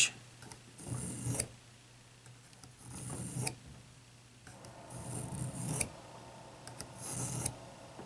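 Gerber pocket knife blade drawn lightly through the ceramic finishing slot of a Smith's Pocket Pal sharpener: four passes about two seconds apart, each a short rasping scrape that ends in a click as the blade leaves the slot.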